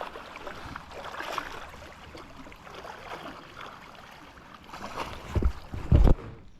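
Steady rush of high creek water, with two loud low thumps about five and six seconds in.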